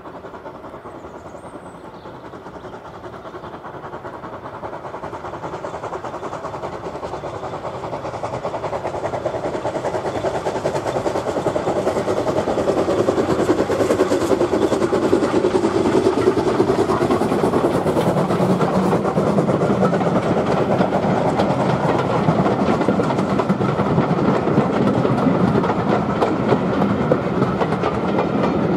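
BR Ivatt Class 2MT 2-6-0 steam locomotive No. 46521 working hard with a train of coaches. Its rapid exhaust beats grow louder as it approaches and passes about halfway through, then the coaches rolling by keep the sound loud.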